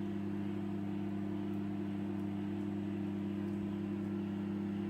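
A steady, unchanging low hum with no rhythm or breaks, like a running motor or appliance.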